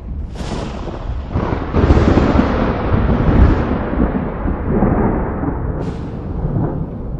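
A deep, rolling rumbling boom that swells sharply just under two seconds in and rumbles on for several seconds, slowly fading.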